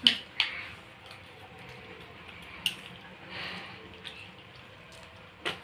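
Quiet eating sounds: a few soft spoon clicks and mouth sounds as a spoonful of sweet is tasted, with a short breathy sound about three and a half seconds in.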